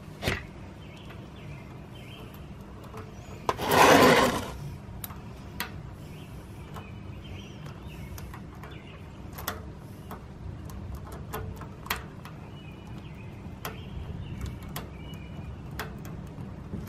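Light clicks and handling noises as the coolant drain screw is threaded back into the motorcycle engine by hand, over a steady low hum. A loud rustling rush about a second long comes about four seconds in.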